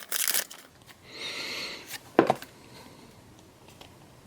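Pokémon trading cards being handled during a pack opening: a brief rustle, a card sliding against the others for about a second, then a single sharp tap about two seconds in, followed by faint handling.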